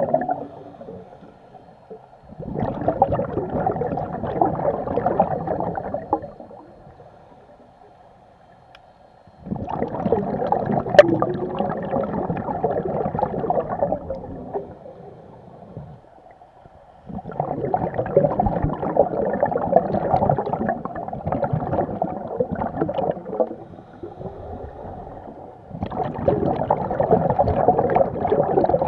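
Scuba diver breathing underwater through a regulator: each exhale sends a burst of bubbles gurgling past for several seconds, with quieter gaps for the inhales, about every seven or eight seconds.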